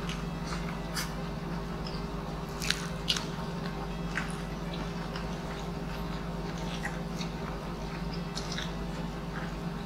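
Close-miked eating: crunchy bites and chewing of crispy deep-fried pork knuckle (crispy pata) and string beans, with scattered sharp crackles, the two loudest a little under a third of the way in. A steady low hum runs underneath.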